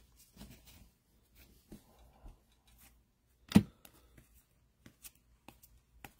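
Baseball trading cards flipped and slid one by one through the hands, giving light clicks and snaps, with one much louder tap about three and a half seconds in.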